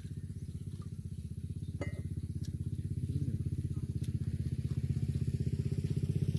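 A small engine running with a steady, fast beat that slowly grows louder, with a few faint clicks over it.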